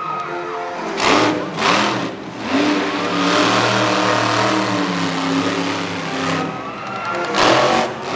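Monster truck engine revving hard in short bursts, then rising in pitch as the truck accelerates, with a loud burst of throttle near the end as it launches into a jump.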